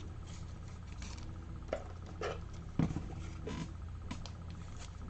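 Soft rustling and a few small clicks of a trading card and plastic card holders being handled, over a steady low electrical hum.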